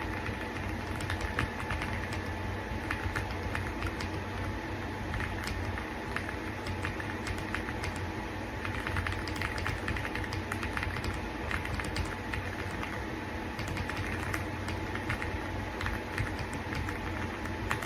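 Typing on an AULA F75 gasket-mounted mechanical keyboard: a run of quick, uneven keystroke clicks over a steady background hum.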